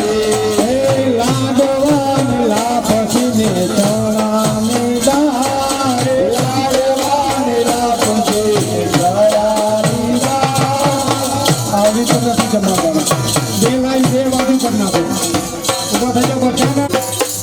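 Instrumental passage of a Gujarati devotional folk song (bhajan): a melody line over fast, steady rattling percussion.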